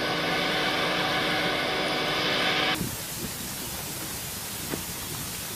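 KAMAZ military truck's diesel engine running close by, a steady hum with a whine over it. About three seconds in it cuts abruptly to a quieter, even hiss, with the vehicle far off.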